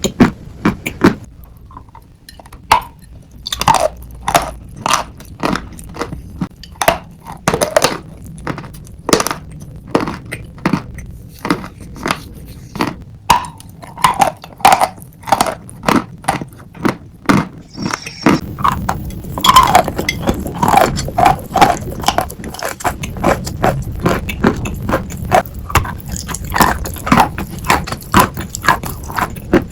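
Sawn chalk being chewed close to the microphone: a long, even series of sharp, dry-sounding crunches, some with a short squeak.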